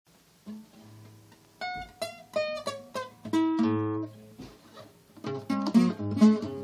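Classical guitar played fingerstyle in D minor: a few soft low notes, then single plucked notes and a chord held for about a second, then a quicker, louder run of picked notes near the end.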